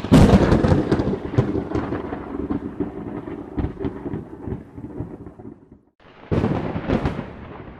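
Two thunder strikes. The first is a sharp crack that rolls into a long rumble, fading away over about six seconds. A second crack comes about six seconds in and rumbles on.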